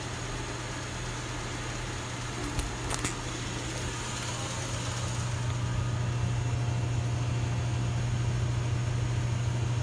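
Neon tube processing plant running during electrode bombarding: a steady low electrical hum over a hiss of machinery, growing a little louder about halfway through. Two brief clicks come about two and a half and three seconds in.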